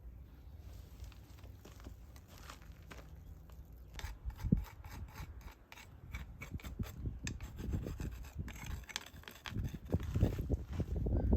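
Irregular rubbing and scraping with many scattered sharp clicks, growing louder in the last couple of seconds.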